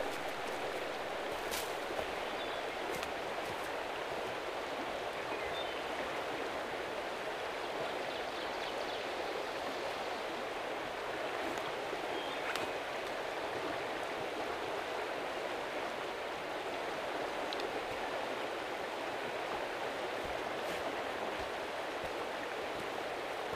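A fast creek rushing steadily, an even unbroken rush of water, with a couple of faint clicks.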